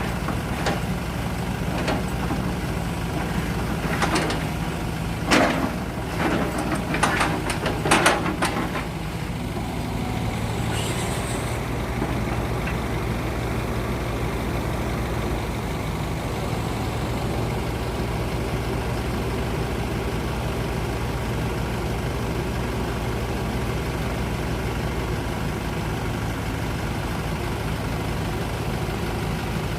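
Heavy diesel engine of log-loading machinery running steadily. A string of knocks comes between about four and nine seconds in, and a short hiss near eleven seconds.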